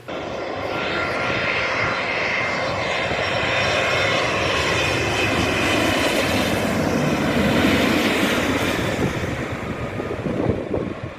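Fixed-wing airplane's engines running loud as it passes close by, with the engine tones falling in pitch as it goes past.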